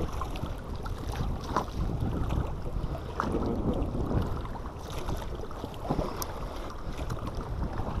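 Wind rumbling on the microphone over choppy sea, with waves lapping against the hull of an inflatable boat and a few scattered light clicks.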